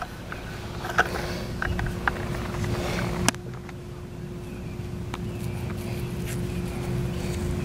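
Fingers scraping and digging through loose dirt to pick out a coin, with a few short scrapes and knocks in the first few seconds, over a steady low rumble and a faint steady hum.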